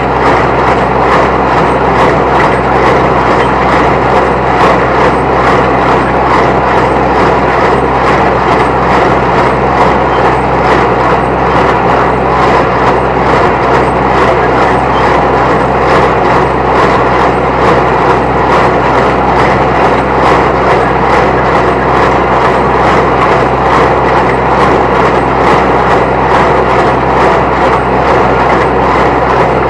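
New Holland T1510 compact diesel tractor running steadily under PTO load, driving a New Holland 269 Hayliner square baler whose plunger knocks in a fast, even rhythm as it bales hay.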